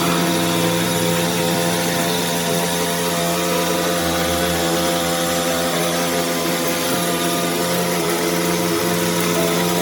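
A motor-driven machine running steadily, with a constant hum and a hiss over it.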